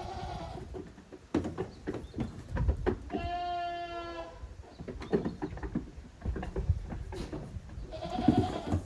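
Goat kids bleating: one long, level bleat about three seconds in, with shorter bleats at the start and near the end. Scattered knocks and thumps run through it as the kids play.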